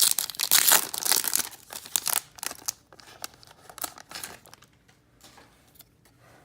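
Plastic wrapper of a 2018 Contenders football card pack being torn open and crinkled. The crinkling is loudest over the first two seconds or so, then thins to quieter, scattered rustles and ticks.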